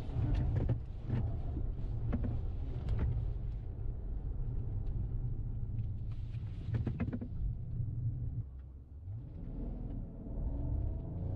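Low cabin rumble of a Mercedes-Benz S680 Guard's twin-turbo V12 engine and its tyres on the road, heard from inside the car, with a few scattered clicks. Near the end the engine note rises as the car accelerates.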